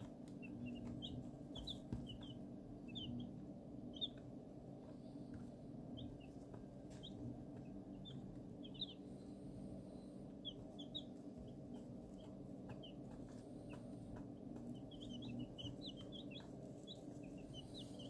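A brood of young chicks peeping: scattered short, high chirps, busiest near the start and again near the end, over a steady low hum.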